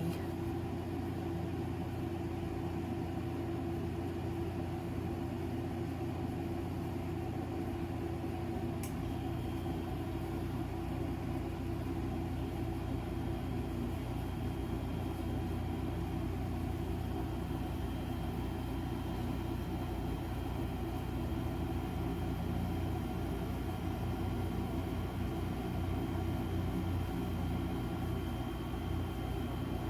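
Electric fan running with a steady hum, with a faint click about nine seconds in.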